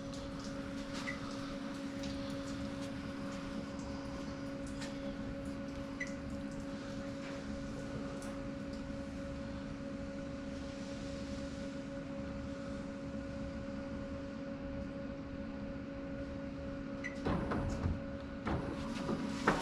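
Combo vending machine running its start-up self-check, a steady motor hum with a few light clicks, then some clattering knocks near the end. The machine does this each time it is powered up or its door is closed, to confirm everything is working.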